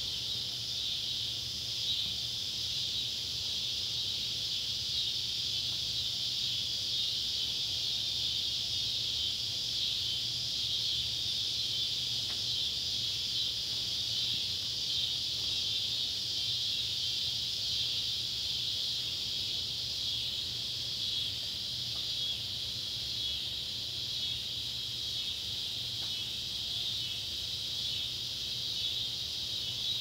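Chorus of Neotibicen cicadas, scissor grinder (N. pruinosus) and swamp cicada (N. tibicen), calling together as one steady, high, unbroken buzz.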